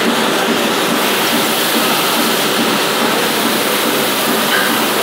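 Three-brush floor scrubber running, its electric motor and rotating brushes scrubbing a concrete floor with a steady rushing noise.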